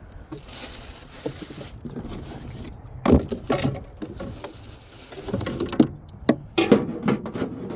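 Irregular knocks, taps and rattles of fishing gear being handled and moved around in a boat while searching for pliers, with a short hiss about a second in.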